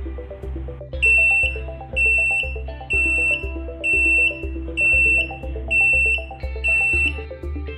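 Butt fusion welder's datalogger buzzer beeping, about seven high-pitched beeps roughly once a second, signalling that the weld's cooling phase is finished. Background music with a steady beat plays underneath.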